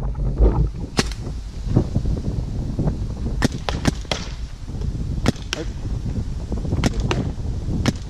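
Paintball markers firing: about a dozen sharp pops at irregular intervals, some in quick pairs, over a steady low rumble.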